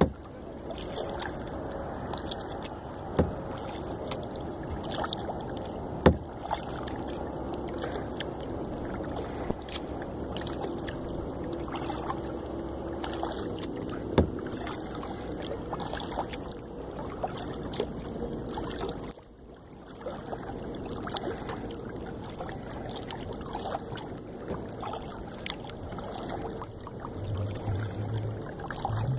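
Kayak being paddled on calm water: steady water noise along the hull from the paddle strokes, with a few sharp knocks in the first half.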